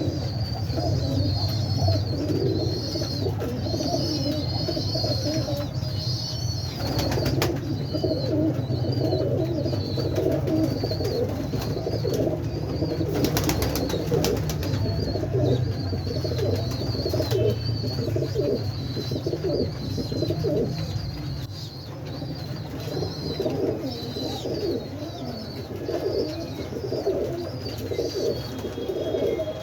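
Pigeons cooing over and over, several voices overlapping, with high chirps from small birds throughout and a steady low hum underneath.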